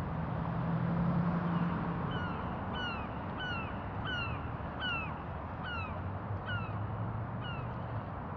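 A bird calling in a rapid series of about a dozen short, down-slurred calls, roughly two a second, starting about two seconds in, over a steady low rumble.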